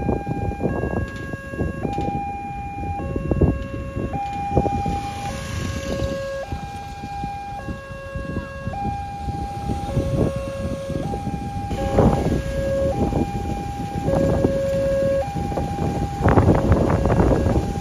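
Electronic level-crossing warning alarm sounding a steady two-tone signal that alternates high and low about once a second, warning that a train is approaching. Wind buffets the microphone underneath, with stronger gusts near the end.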